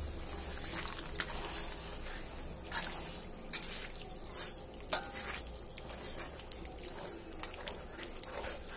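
Cream poured from a can into a wok, trickling and splashing, with a metal spatula stirring and scraping against the pan in short sharp strokes.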